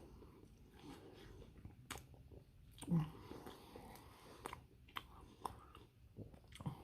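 Close-up chewing of a chili dog: wet mouth clicks and smacks at an irregular pace, with one louder low sound about three seconds in.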